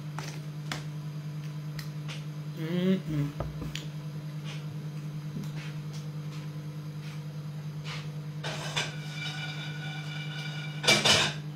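Steady low electrical hum with a few light clicks and knocks, then a loud knock and clatter near the end.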